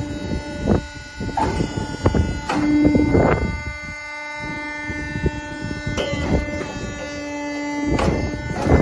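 Sawdust briquetting press (POR Bricc Junior Etienne, 5.5 kW main motor) running, with a steady whine and irregular sharp knocks a second or two apart as it compacts sawdust into 5 cm briquettes.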